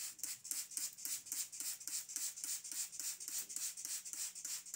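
Hand-pumped spray bottle spritzing water onto a chocolate sponge layer to moisten it, in quick repeated hissing squirts of about four a second.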